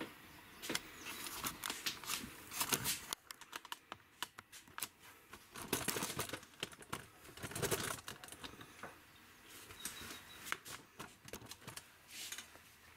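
Scattered light clicks, taps and rustling from close hand handling, with no steady sound. There are a few busier bursts about a third and halfway through.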